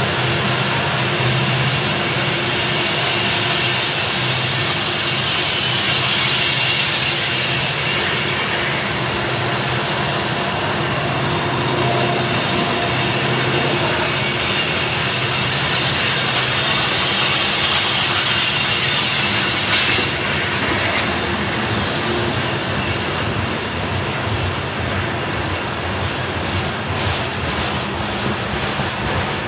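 Loaded coal hopper cars of a long freight train rolling past on a curve, their steel wheels squealing against the rails over the steady rumble of wheels on track.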